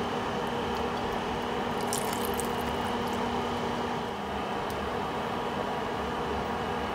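A pot of corn and shrimp soup boiling on the stove: a steady hiss and bubbling, with a few light clicks about two seconds in.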